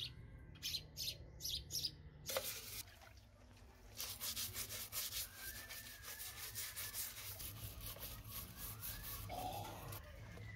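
A stiff plastic-bristled brush scrubs a pedestal fan's metal motor housing in soapy water. It starts with a few separate strokes, and from about four seconds in the scrubbing is quick and even.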